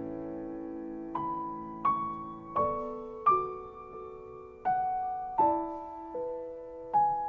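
Solo piano playing a slow, gentle melody. A chord rings and fades for the first second, then single notes are struck about every three-quarters of a second, each one ringing out and fading.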